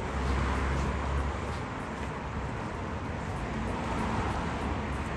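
City street ambience with traffic noise, with a stronger low rumble in the first second or so.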